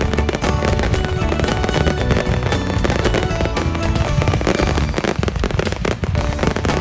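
Fireworks bursting and crackling in quick, dense strokes throughout, mixed with added background music.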